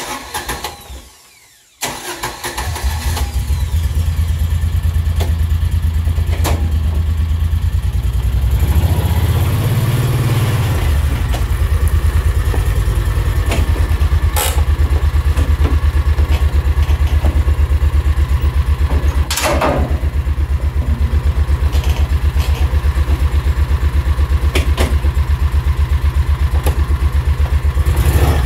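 Kawasaki Mule 4010 utility vehicle's engine cranked and started, catching about two seconds in, then running with a steady low pulsing beat and rising in speed briefly around ten seconds in as the vehicle is driven. A couple of sharp clacks come through over the engine.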